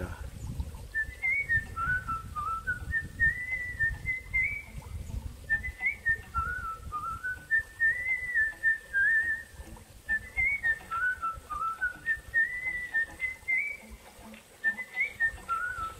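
A whistled melody, short phrases of pure notes rising and falling without a break, over an uneven low noise.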